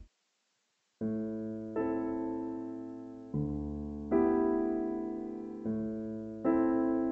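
About a second of silence, then slow solo piano music: sustained chords, a new one struck every second or so, each dying away.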